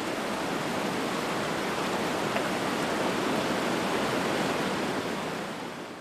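Steady rush of falling water, fading out near the end.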